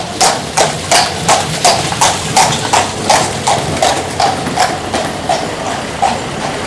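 A carriage horse's hooves clip-clopping on cobblestones as a horse-drawn carriage passes, about three hoof strikes a second, fading away over the last couple of seconds.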